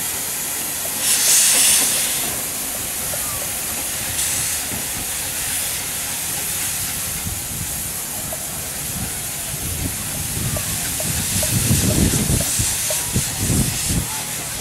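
Small narrow-gauge steam locomotive hissing steadily, with a louder burst of steam about a second in. In the last few seconds the hiss grows and low chuffs come in as steam blows from the open cylinder drain cocks while it moves.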